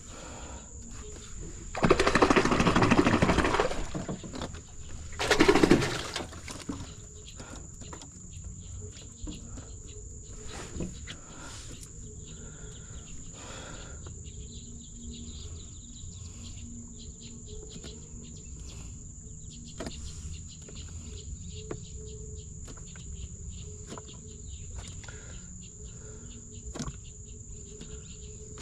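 Insects chirping in a steady high drone, broken about two seconds in by two loud rushing noises a few seconds long, then low ambience with scattered small clicks.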